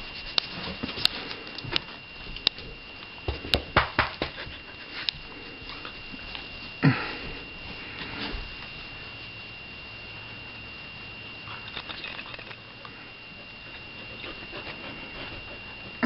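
Doberman sniffing and moving about close by, with scattered light clicks and knocks in the first few seconds and one louder short snort about seven seconds in.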